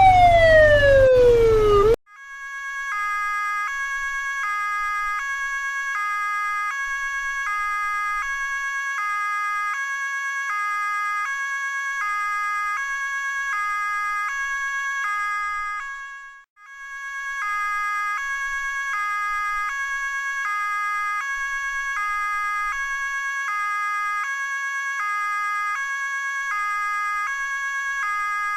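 Police siren: a wailing tone slides down in pitch and cuts off about two seconds in. A two-tone hi-lo siren follows, switching between a high and a low note about once a second. It stops briefly about halfway through, then starts again.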